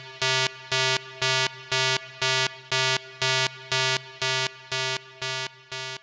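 Synthesized countdown beeps: a short electronic tone pulsing about twice a second, each pulse the same pitch, growing fainter over the last couple of seconds.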